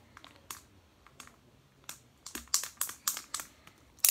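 Hard plastic clicks and rattles from a 2002 Mattel Skeletor action figure being worked by hand to show off its action feature. A few separate clicks come first, then a quick run of clicks past the middle.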